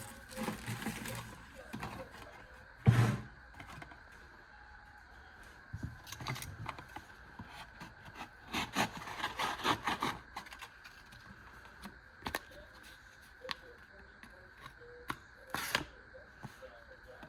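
Handling noises: a sharp knock about three seconds in, a cluster of rustling and small clicks in the middle, and a few more isolated clicks later on.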